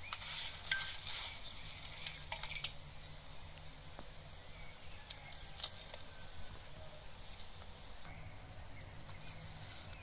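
Food frying with a faint steady sizzle in a wide black steel wok, with a wooden spatula scraping and knocking against the pan, mostly in the first few seconds. The sizzle drops out about eight seconds in.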